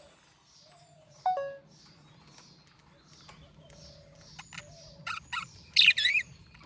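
Budgerigar chirping: scattered short, faint chirps, a sharp falling call about a second in, and a louder burst of warbling chirps near the end.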